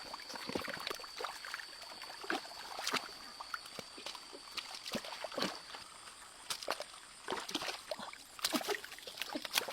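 Water splashing and sloshing in irregular short strokes. A thin, steady high-pitched tone runs underneath and stops about five and a half seconds in.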